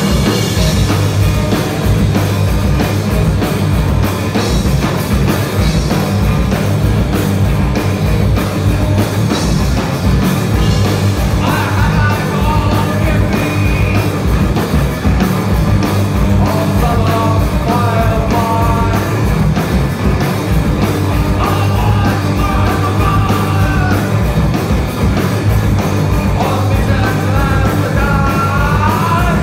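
Live rock band playing electric guitar, bass guitar and drums with a steady beat, and a man singing several phrases into the microphone in the second half.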